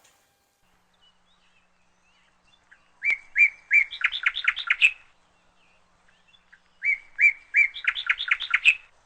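A songbird singing the same short, quick phrase twice, a few seconds apart. Each phrase opens with several repeated notes, runs into a fast series of notes and ends with a flourish.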